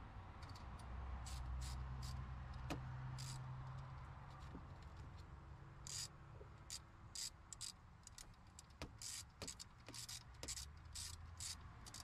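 Ratchet wrench clicking in short, irregular runs as a bolt on the alternator bracket is turned. A low rumble comes and goes underneath, strongest in the first few seconds and again near the end.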